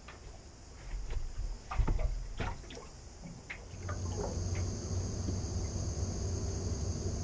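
Knocks and thuds on an aluminium boat hull as someone moves about on board, a cluster of them in the first few seconds, followed by a steady low hum with a high hiss.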